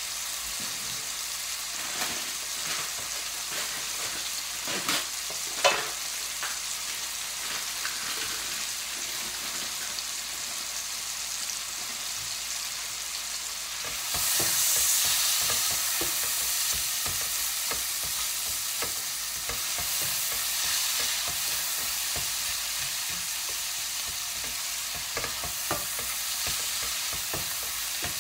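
Sliced onions frying in hot mustard and sunflower oil in a metal pot, a steady sizzle as they soften. About halfway through, a silicone spatula starts stirring them: the sizzle grows louder, with quick scraping and tapping against the pot.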